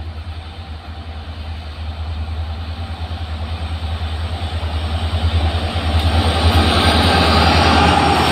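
EMD WDG-4 diesel locomotives, two-stroke 16-cylinder engines, hauling an approaching freight train: a deep, rapidly pulsing engine rumble growing steadily louder, with wheel and rail noise rising over it as the locomotives draw level near the end.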